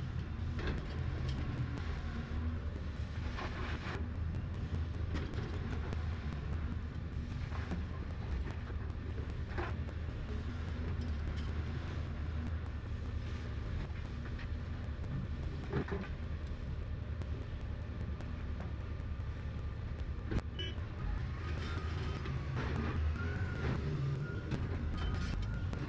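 Excavator diesel engine running steadily, with a few sharp knocks from the machine at work.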